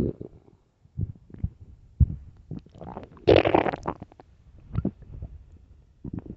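An empty human stomach growling and gurgling. A string of short, low gurgles and pops is followed by a longer, louder gurgle about three seconds in.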